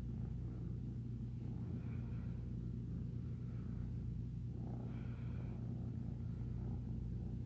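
Young tabby kitten purring steadily and low while its head and cheeks are scratched.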